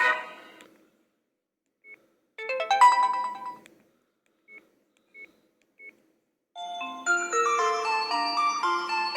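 Sony Ericsson F305 mobile phone's stereo speakers playing ringtones. A ringtone fades out at the start, a short melodic phrase plays about two and a half seconds in, three brief beeps follow, and a new melody begins about two-thirds of the way through.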